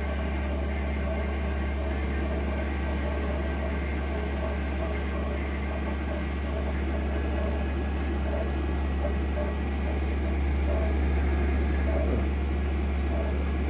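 Air conditioner running: a steady low hum with air noise from its fan.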